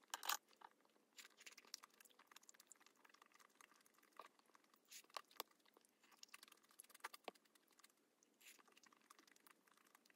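Faint close-up mouth sounds of eating spicy sauced food: soft chewing with wet, sticky smacks and clicks. The sharpest click comes about a third of a second in.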